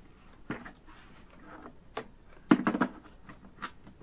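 Hard plastic parts of a small 3D printer knocking and clicking as they are handled and fitted together: a few separate clicks, with a louder short clatter about two and a half seconds in.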